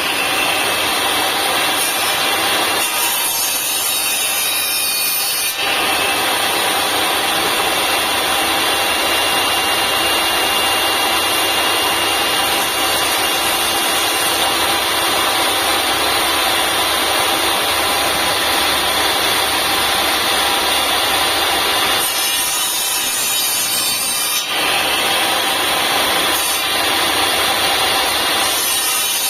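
Ingco TS15007 table saw running and cutting wood: a loud, continuous sawing noise over the motor's whine, whose texture shifts briefly twice, a few seconds in and again about 22 seconds in.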